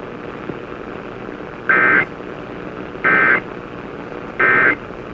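Emergency Alert System end-of-message signal: three short bursts of warbling digital data tones, evenly spaced a little over a second apart, marking the end of the alert. A steady background hiss runs between the bursts.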